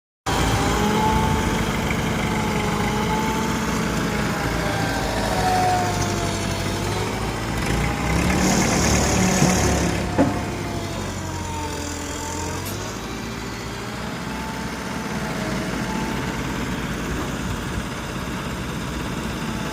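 A heavy vehicle's engine running steadily, its pitch rising and falling slightly, with a brief hiss about halfway through and a single sharp knock just after it.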